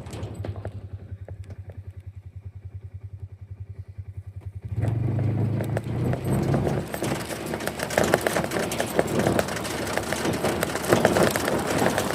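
A vehicle engine idling with a steady low putter, then revving up and pulling away about five seconds in, running louder from there on.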